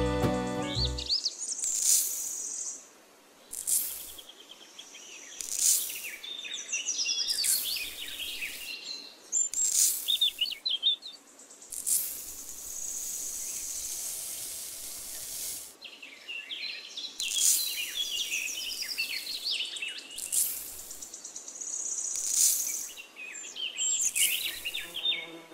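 Birds chirping and calling, with repeated hissing pours of dry sand from a small cup, each lasting a second or two; the longest pour comes about halfway through.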